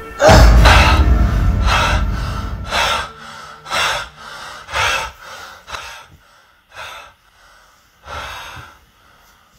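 A man gasps awake, then breathes hard in sharp breaths about once a second that grow fainter and further apart toward the end. A deep low rumbling hit, the loudest sound, comes in with the first gasp and fades over about three seconds.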